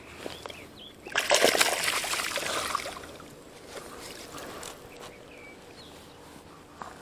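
Shallow water splashing and sloshing at a river's edge. A loud splash starts about a second in and lasts about two seconds, then the water laps more quietly.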